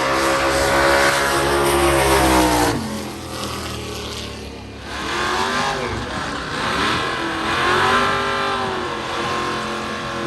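Race car engines at high revs: one runs hard at a steady high pitch and cuts off sharply under three seconds in, then engine revs rise and fall several times.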